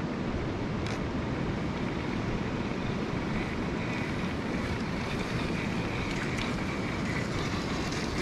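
Wind buffeting the microphone over the faint whine of two Axial SCX10 III Base Camp 1/10-scale electric RC crawlers driving over bare rock, with one small click about a second in.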